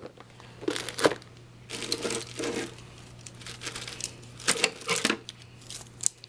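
Clear plastic craft storage boxes and supplies being handled and moved: irregular clicks, clatter and rustling, in a few clusters.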